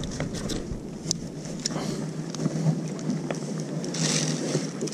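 Wind rustling on the microphone out on open water, with scattered small clicks and knocks from the rod and line being handled in the kayak.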